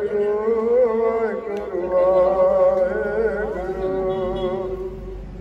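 Devotional chant sung by a male voice in long, held notes that slide from pitch to pitch.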